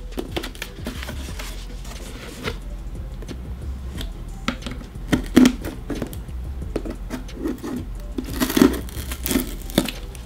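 Scissors cutting and scraping along packing tape on a cardboard box, with crinkling tape and handling knocks of the box in short, irregular bursts. The loudest burst of cutting and crinkling comes about eight and a half seconds in.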